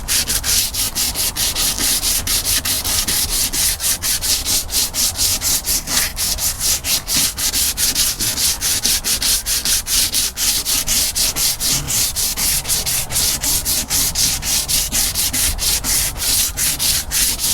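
Sandpaper rubbed back and forth by hand over a boat's painted surface, in quick even strokes about four to five a second. The 150-grit paper is lifting loose, peeling old paint before repainting.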